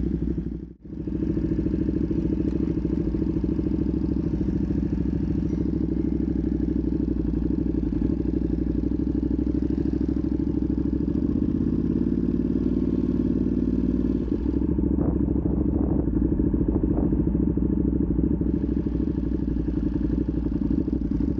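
Ducati Panigale V2's V-twin engine running through a Vandemon full titanium exhaust as the bike rides along, steady at low speed with a slight rise in revs near the middle. The sound cuts out briefly about a second in.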